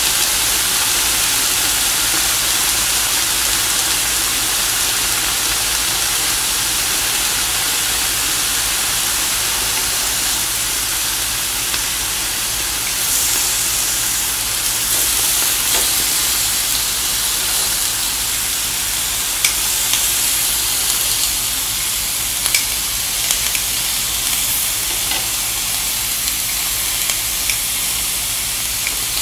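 Slices of beef sizzling steadily on a hot tabletop grill plate, with a few faint clicks in the second half.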